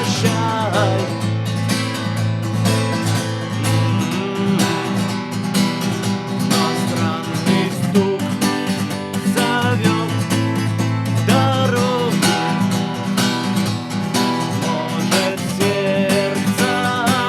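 Steel-string acoustic guitar strummed in a steady rhythm, playing a song's instrumental passage.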